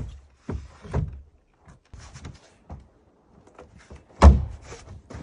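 Irregular knocks and thumps from building work on the wooden bunkie frame, with one loud, deep thump about four seconds in.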